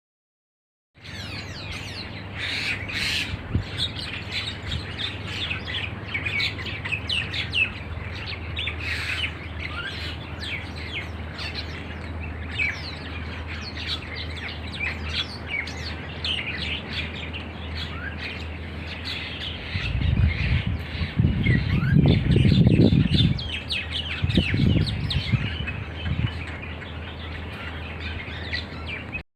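A flock of starlings chattering and chirping continuously, many calls overlapping. A steady low hum runs underneath, and a louder low rumble comes in for several seconds about two-thirds of the way through.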